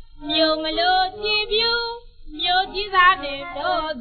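A woman singing a Burmese song with wavering, ornamented notes, played from a 1940 His Master's Voice 78 rpm record. The sound is muffled with no high treble, over a faint bed of surface noise.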